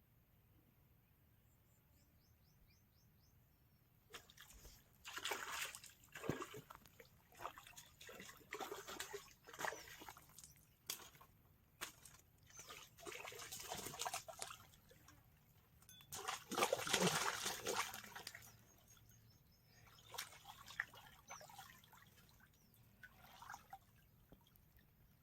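Water sloshing and splashing in irregular bursts that start about four seconds in, the loudest a little past the middle, with faint bird chirps before them.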